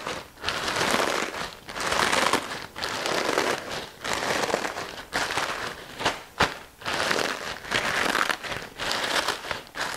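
Corn tortilla chips being rough-crushed by hand inside a plastic zip-top bag: crunching of the chips and crinkling of the plastic in repeated squeezes, about one a second.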